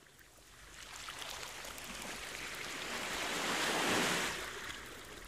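Sea waves washing up a sandy shore: a hiss of surf that swells to a peak about three to four seconds in and then draws back.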